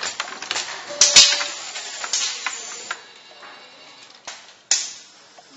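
Automatic wire-harness tape-wrapping machine cycling: two sharp clacks about a second in, then short bursts of hissing, with another sharp click and hiss near the end.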